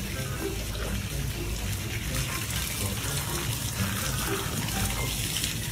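Water spraying from a garden hose in a steady hiss as it washes out a hippo's open mouth.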